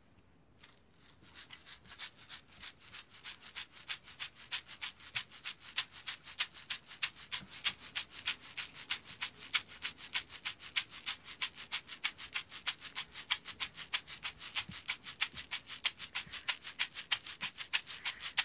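Hand rattle shaken in a steady, quick rhythm of about five strokes a second. It starts softly about a second in and grows louder over the next few seconds.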